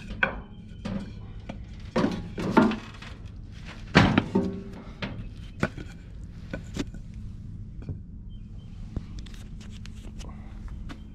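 Thunks and clatter of a Murray riding mower being lowered from where it was tipped up back down onto its wheels on a pebble driveway, loudest about two seconds in and again at about four seconds, followed by lighter knocks and footsteps.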